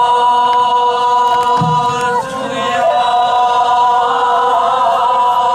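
Voices singing sijochang, Korean traditional sung poetry, together, holding long drawn-out notes with slight wavering. A soft low knock comes in a little under two seconds in.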